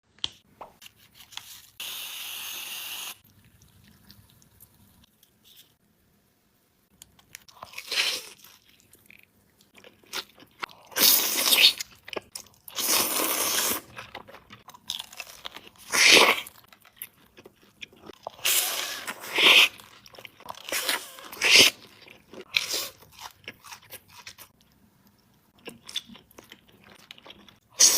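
A person eating: crunchy bites and chewing in irregular bursts, with short pauses between them.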